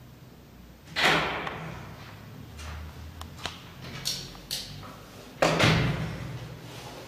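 Two loud bangs, about four and a half seconds apart, each fading out with a short echo, with a few lighter knocks and clicks between them.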